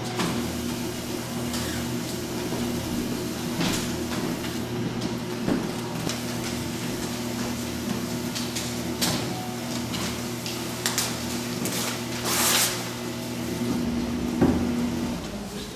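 Fellowes strip-cut paper shredder running with a steady motor hum, chewing through card-mounted artworks with irregular crunching and rattling. The motor hum stops near the end.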